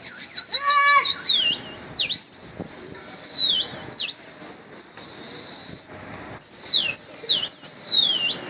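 Loud human whistling: a warbling trill, then two long held whistles, then three shorter whistles that each slide down in pitch. These are a pigeon keeper's whistled calls to his flock in flight.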